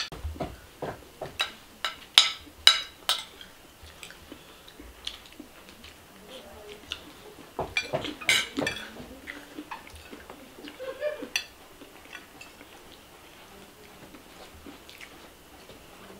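Sharp clinks and clicks of cutlery against dishes, in a quick run over the first few seconds and again about eight seconds in.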